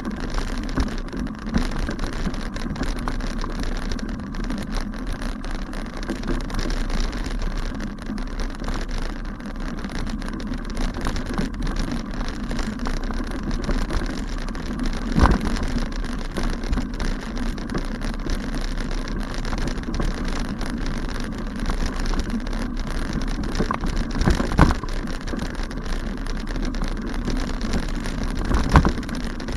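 Bike riding over a bumpy grass path: continuous rumbling and rattling mixed with wind on the microphone, with a sharp knock about halfway through and two more near the end.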